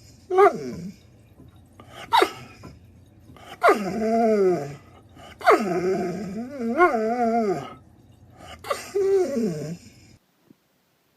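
A dog howling and whining in about five drawn-out, falling calls, the longest wavering up and down in the middle; it stops abruptly near the end.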